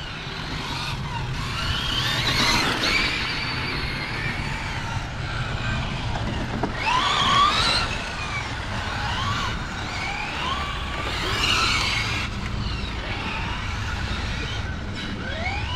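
Radio-controlled model car's motor revving up and down, a whine that rises and falls in pitch again and again as it speeds up and slows; loudest about seven seconds in, over a steady low hum.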